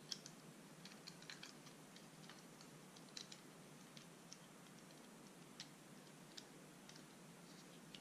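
Faint, irregular small plastic clicks and ticks from handling a GoPro Hero 5/6 camera frame and its replacement buckle.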